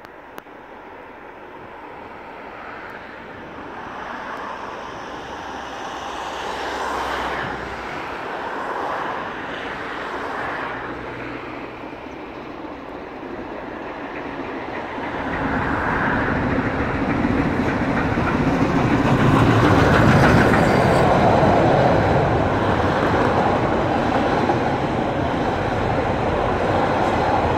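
Steam-hauled passenger train approaching round a curve and passing close by. The sound grows steadily louder, and from about halfway its carriages roll past with heavy rumbling wheel and rail noise.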